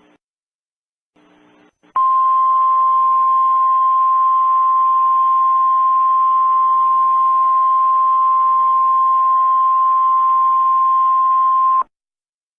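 Emergency Alert System attention tone: one steady, unwavering electronic tone held for about ten seconds, starting about two seconds in and cutting off abruptly, over a faint hiss. It signals that an emergency alert message follows.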